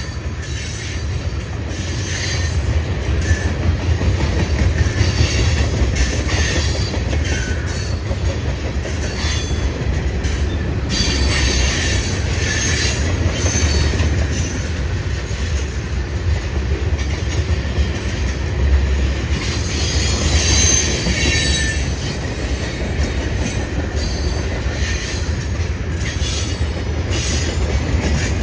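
Freight cars of a CSX manifest train, tank cars and then autorack cars, rolling past with a steady low rumble of wheels on rail. High-pitched wheel squeal comes and goes in spells of a few seconds.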